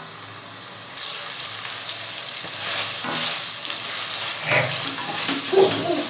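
Turkey fry sizzling in oil in a steel kadai as a wooden spatula stirs and scrapes it around the pan, with a louder scrape or knock about five and a half seconds in. The gravy is frying down as its water boils off toward a dry roast.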